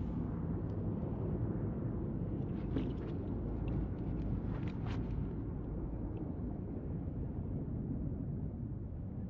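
Muffled, low rumble of battle heard from under the water, with a few faint sharp streaks of bullets entering the water about one, three and five seconds in.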